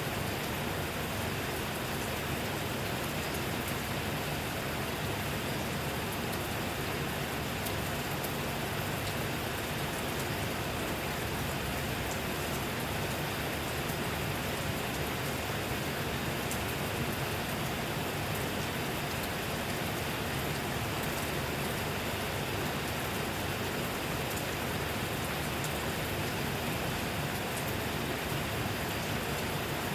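Steady rain falling, a continuous even hiss with many fine drop patters.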